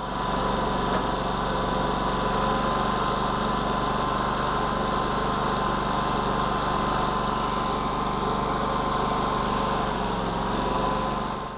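Portable sawmill's small gas engine running steadily, with a steady high whine over it.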